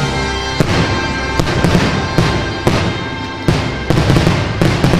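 Aerial fireworks bursting in a string of sharp bangs, starting about half a second in and coming faster near the end, over music.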